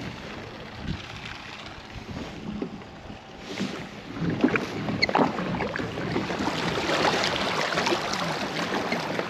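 Water lapping and splashing against a kayak's hull, with wind on the microphone; it grows louder about four seconds in, with a few short splashy ticks.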